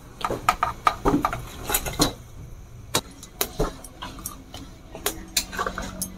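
Metal spatula and steel plate clinking and knocking against a metal kadhai as pieces of fried fish are slid into the curry and stirred. The knocks come irregularly, a few each second.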